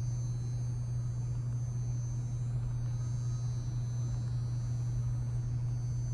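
A steady low hum that holds one pitch without rising or falling.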